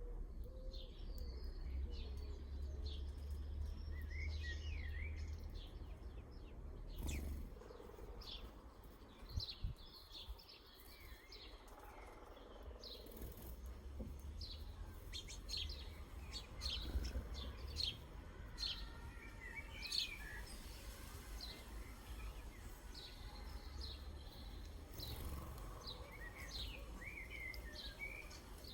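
Small garden birds chirping and calling, many short high notes and brief trills scattered throughout, over a steady low rumble.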